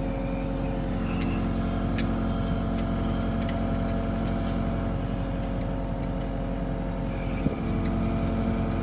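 Tractor engine running steadily under load, powering a Grab N Drive GD30S hydraulic post driver as it drives a vineyard post into the ground. The sound is an even, unbroken drone with no separate hammer blows, and a brief dip about seven and a half seconds in.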